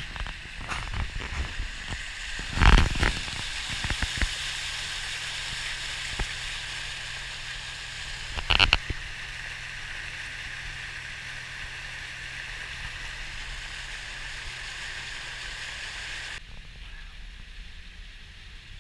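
Steady rush of tyre spray and water as a pickup truck drives through floodwater on a flooded highway, heard through the open window, with two loud splashes or knocks about 3 and 9 seconds in. Near the end the rush drops away, leaving a quieter hum inside the cab.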